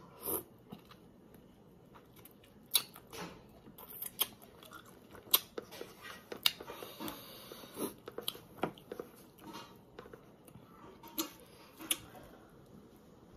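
A person biting into and chewing crisp Marian plums (maprang), with short crunches and clicks scattered irregularly and a few louder ones among them.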